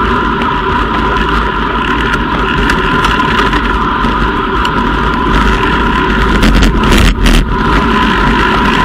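Wind rushing over the microphone of a camera on a road bike at about 40 km/h, a heavy steady rumble with a steady high whine over it. A short crackle of sharp clicks comes about seven seconds in.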